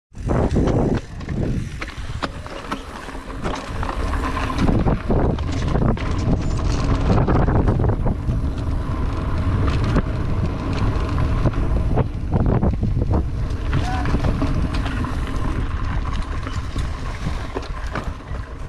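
Mountain bike rolling fast over a dirt singletrack: tyres running on dirt and wind buffeting the microphone, with frequent sharp clicks and knocks from the bike rattling over bumps.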